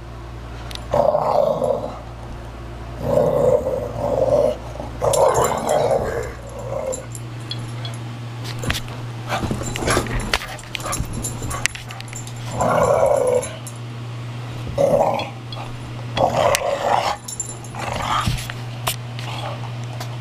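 Valley bulldog growling in play, in about eight rough bursts of a second or so, with a run of clicks and knocks in the middle, over a steady low hum.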